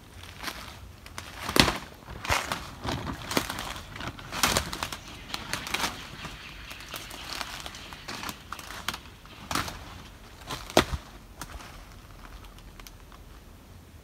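Footsteps crunching and rustling through dry leaf litter and twigs, an irregular walking pace of about one step every half second to a second, growing sparse and quieter near the end.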